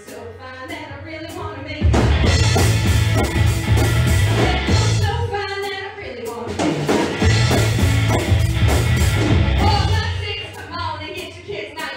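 Live rock band playing: drums, bass guitar and electric guitar under a woman singing. A quieter opening of voice and light ticking gives way to the full band, heavy on bass and drums, about two seconds in.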